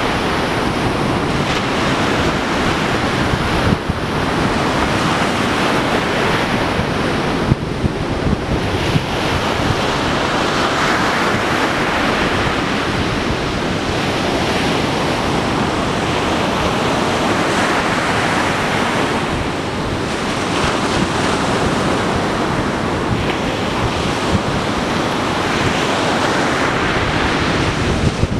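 North Sea surf washing onto the beach, a continuous rushing that swells and eases every several seconds, with strong wind buffeting the microphone and adding a low rumble.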